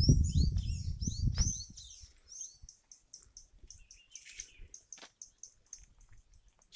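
Small birds chirping: a run of quick, high, downward-swept chirps in the first two seconds, then a fast series of short high ticks. A low rumble on the microphone is loudest during the first two seconds and then fades.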